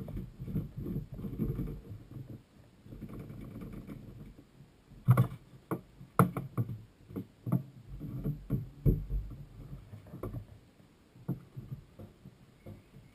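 Hands working around a jet ski's plastic fuel tank: rubbing and rustling at first, then from about five seconds in a run of sharp knocks and clunks as a siphon hose and plastic fuel cans are handled.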